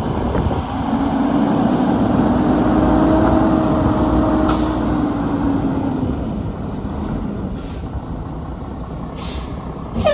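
Mack LE garbage truck's diesel engine running, its pitch rising slowly and easing back down, with a few short hisses of air.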